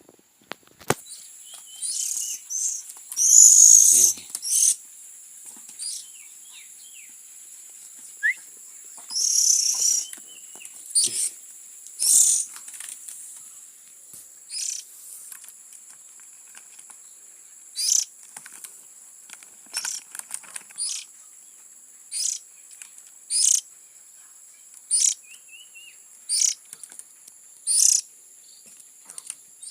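Oriental magpie-robin (kacer) chick calling with short, high-pitched begging calls: a few louder, harsher ones in the first ten seconds, then single calls about every one to two seconds. A steady high-pitched hiss runs underneath.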